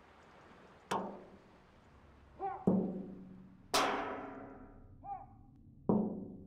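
Sparse percussion music: four drum strikes, each ringing on a low note and fading away, the third the loudest, with short sliding notes between them.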